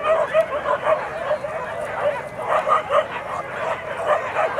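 A pack of hunting dogs yelping and barking, with many short, overlapping calls in quick succession.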